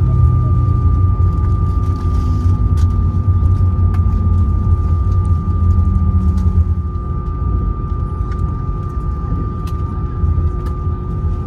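Cabin noise of an Airbus A321 taxiing: a steady low rumble of the engines and airframe with a constant high-pitched whine, and a lower tone falling slowly in pitch over the first several seconds.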